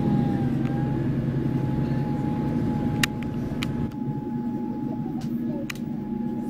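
Diesel passenger train running along the track: a steady engine drone and rumble with a thin steady whine above it. A few sharp clicks come from about three seconds in, as the sound drops a little.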